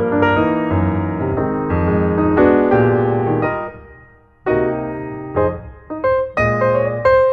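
Background music: piano playing chords and melody notes, fading briefly about four seconds in before new notes begin.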